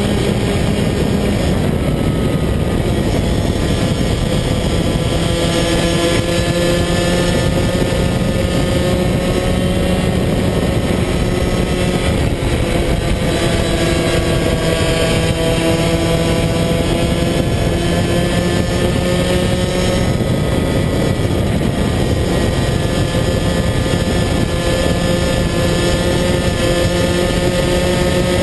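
Rotax DD2 125cc two-stroke kart engine at race speed, heard from on board, its pitch sinking and climbing again several times as the kart slows for corners and accelerates out of them.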